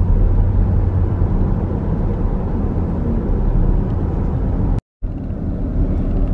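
Steady road and engine noise of a car driving at speed, heard from inside the cabin, mostly a low rumble. The sound drops out completely for a moment about five seconds in, then carries on unchanged.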